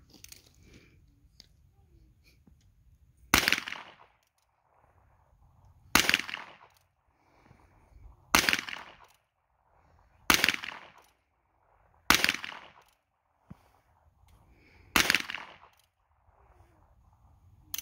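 Six single shots from a Ruger Wrangler .22 LR single-action revolver, fired one at a time about two to three seconds apart, the hammer thumbed back between shots.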